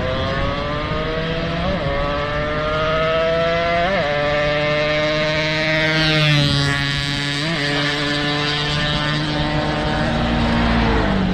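Yamaha RX-King's two-stroke single-cylinder engine running hard at speed. Its pitch climbs slowly, broken by three brief blips.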